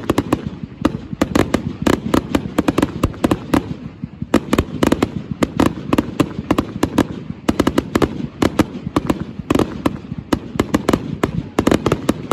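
Fireworks display going off in rapid succession: sharp bangs several a second, densely overlapping, over a continuous low rumble.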